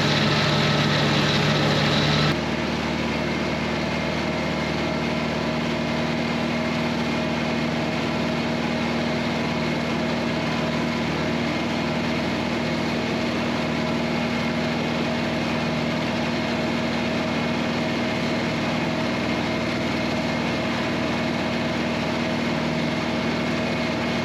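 John Deere 3020 tractor engine running steadily while driving a disc mower. About two seconds in, the tone and loudness shift abruptly, then hold steady.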